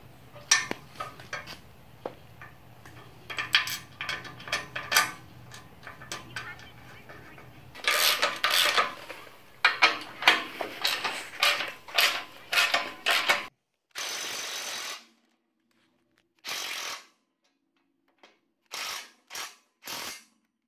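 Steel suspension parts clinking and clanking as a coil-spring retainer and its bolts are handled and fitted by hand. Then a cordless DeWalt driver runs in five short bursts, the first about a second long, driving the spring retainer bolt down.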